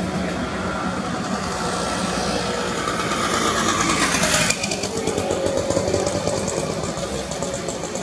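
Motor traffic running steadily, with a hiss that builds over a couple of seconds and stops abruptly about halfway through.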